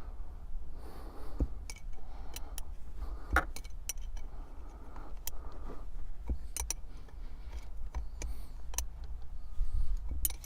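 Irregular metallic clicks and clinks of a wrench on the nut and bolt of a Subaru Outback shifter pivot as the nut is tightened down on new pivot bushings, with some short rustling between the clicks.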